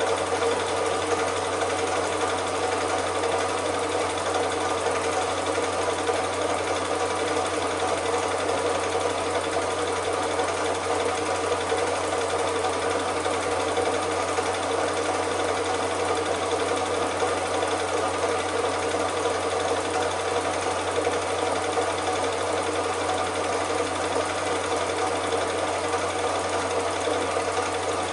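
Cine film projector running steadily: a continuous, even mechanical sound with a steady hum, unchanged throughout.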